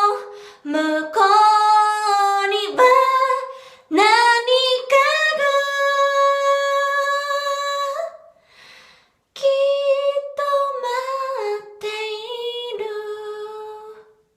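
A cappella singing of the closing lines of a Japanese graduation chorus song, slow, with long held notes. There is a short pause about nine seconds in, and the final held note fades out.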